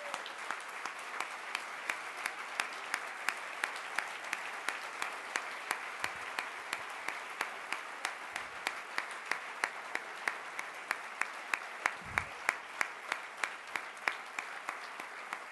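Audience applauding steadily, with one set of sharp, evenly spaced claps, about three a second, standing out above the general clapping.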